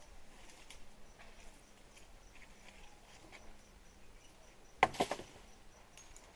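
Quiet bush with faint, evenly repeating insect chirping; about five seconds in, a quick cluster of sharp snaps of dry sticks breaking.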